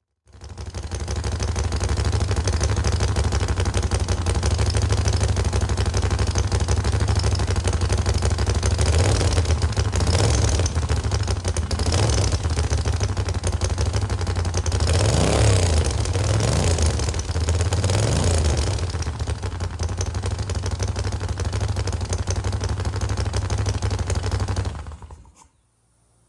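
Moto Guzzi V7 Corsa's air-cooled transverse V-twin idling through short aftermarket-style pipes, with about six quick throttle blips in the middle before it settles back to idle; it cuts off near the end.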